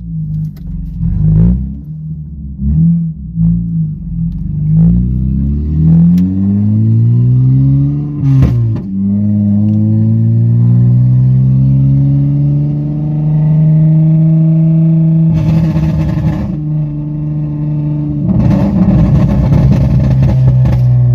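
Honda Accord V6 coupe's 3.5-litre V6 through a straight-piped exhaust with the electric cutout open, heard from inside the cabin. The revs rise and fall for the first several seconds, climb to a shift about eight seconds in, then settle into a loud steady drone that rises slowly as the car pulls in the next gear, with two short spells of rushing noise near the end.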